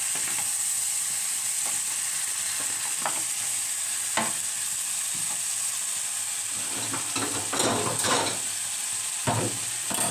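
Meat masala with fried potatoes sizzling steadily in oil in a pan, while a spoon stirs it, scraping and knocking against the pan now and then, most often in the second half.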